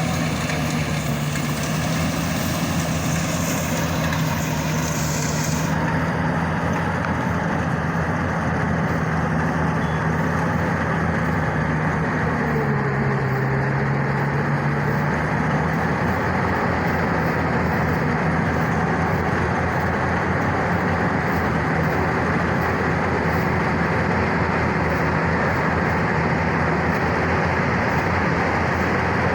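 Yanmar YH700 full-feed combine harvester running steadily, its diesel engine and machinery droning. A bright high hiss in the mix fades about six seconds in, and the engine note sags in pitch for a few seconds midway before coming back up, as under a passing load.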